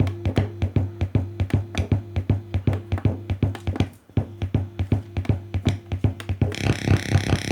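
Electronic music with a fast, steady drum-machine beat over a bass line, played back through a home-theater speaker under test. A brighter, hissier layer comes in near the end.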